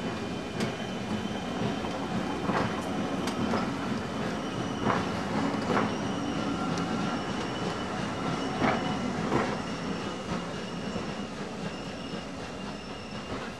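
Vintage railway carriages rolling slowly past, their wheels clicking over rail joints in pairs with a low rumble and a thin high wheel squeal underneath. The sound fades as the train draws away.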